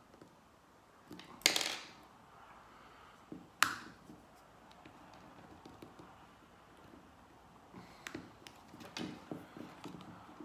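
Plastic pry tool working into the seam of an iPod Classic's metal case: two sharp clicks about two seconds apart, then a run of light ticks and scrapes near the end as the tool is levered along.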